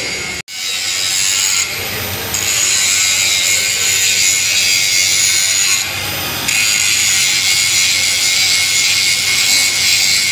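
Cordless angle grinder grinding a metal piece clamped in a bench vise and throwing sparks. It makes a steady, loud, high-pitched grinding noise that eases off briefly about two seconds in and again around six seconds in.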